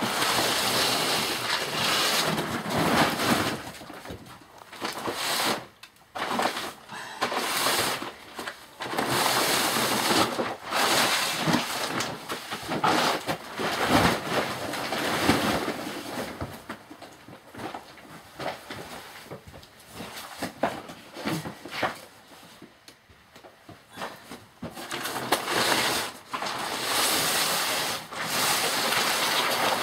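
Irregular rustling and shuffling of fabric as pillows and bedding are handled and moved about, in loud stretches of a few seconds with short pauses between them.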